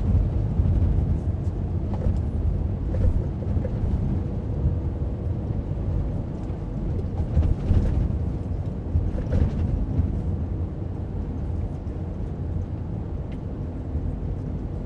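Truck's diesel engine and road noise from inside the cab while driving, a steady low rumble that eases slightly over the stretch, with a few faint ticks.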